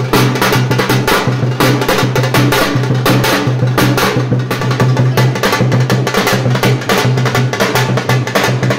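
Music with fast, dense drumming over a steady low note.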